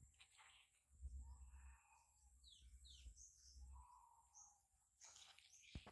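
Near silence with a few faint, short bird chirps and a low rumble.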